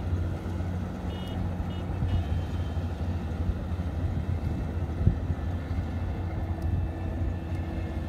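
Rice combine harvester's engine running steadily as a low hum, with a few short high tones a second or two in and a brief thump about five seconds in.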